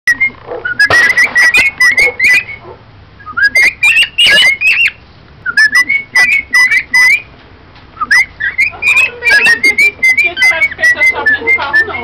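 Cockatiels chirping: rapid runs of short, high chirps that flick up and down in pitch, in bouts of a second or two with brief pauses between.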